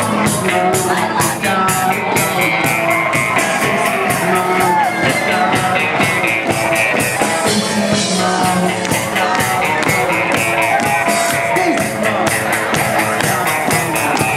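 Live rock band with electric guitars and a drum kit playing a song, the drums keeping a steady beat.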